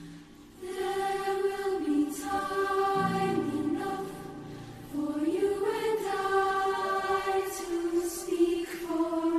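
Mixed-voice school choir singing long held notes in two phrases, the second rising in pitch after a brief dip about five seconds in, with crisp "s" consonants from the whole choir.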